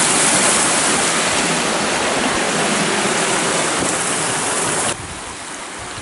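Waterfall cascading down a steep rock face: a loud, steady rush of falling water that drops suddenly to a softer level about five seconds in.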